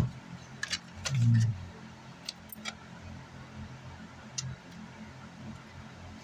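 Small sharp metal clicks and taps from handling a car amplifier's casing, screws and a screwdriver on a workbench, with a dull low thump about a second in, over a faint steady low hum.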